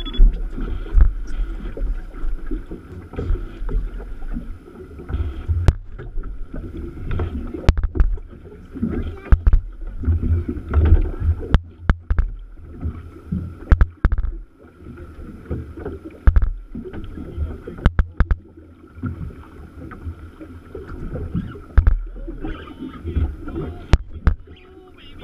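Small fishing boat rocking on open water: water lapping and slapping at the hull over a low rumble, with scattered sharp knocks and clicks.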